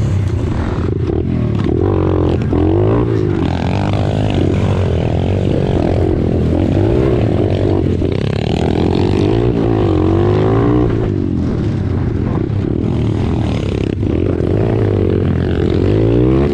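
Off-road bike or quad engine revving up and falling back over and over as it rides about, its pitch rising and dropping several times.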